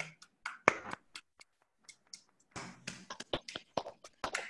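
Hands clapping in applause: a run of sharp, uneven claps.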